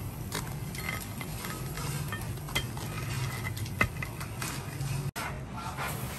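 Light taps and crackles of chopsticks pressing on a crisp-fried, crumb-coated squid on a plate, with two sharper clicks in the middle, over a steady low hum.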